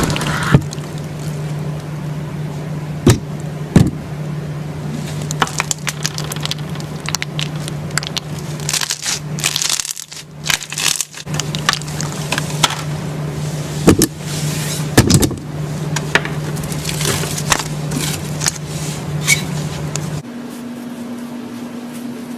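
Slime being squeezed and worked by hand, with many small crackles and pops over a steady low hum. The hum changes abruptly about twenty seconds in.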